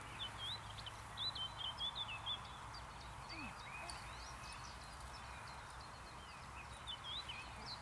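Songbirds chirping in quick runs of short, high twittering notes, thickest in the first couple of seconds and again near the end, over a steady low background hum.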